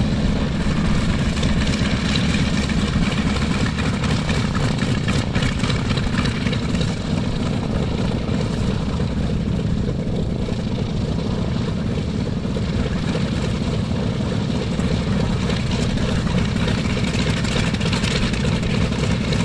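Grumman FM-2 Wildcat's Wright R-1820 nine-cylinder radial engine running steadily at low taxiing power, its propeller turning.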